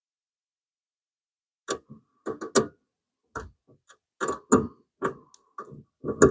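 Small metal parts and hardware being handled: a run of about a dozen sharp clicks, clinks and knocks, some with a short metallic ring, starting after a second or two of silence.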